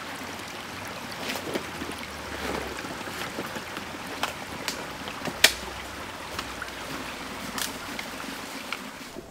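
A shallow creek running, with scattered crackles and snaps of twigs and stones underfoot; the sharpest snap comes about five and a half seconds in.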